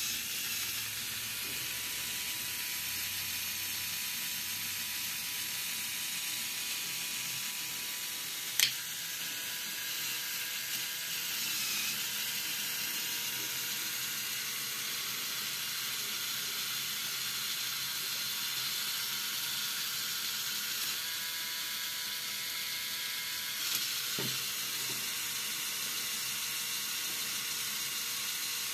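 Steady hiss of room noise, with one sharp click about nine seconds in and a light knock near the end.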